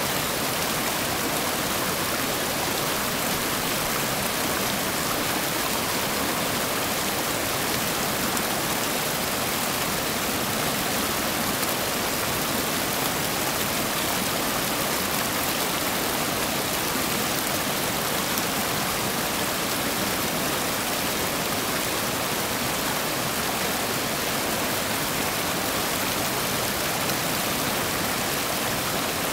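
Whitewater rapids of the Cossatot River pouring over rock ledges: a steady, unbroken rush of water.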